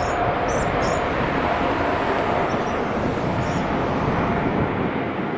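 Boeing 747 freighter's four jet engines at takeoff power on the takeoff roll: loud, steady jet noise with a faint steady whine, and a few faint high chirps.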